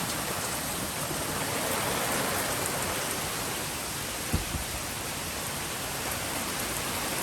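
Heavy rain from a hurricane falling steadily, with one short low thump about four seconds in.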